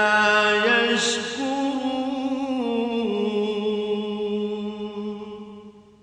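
A man reciting the Quran in a melodic chant, drawing out one long sustained phrase; its pitch rises slightly and then steps down a few times before it fades out near the end.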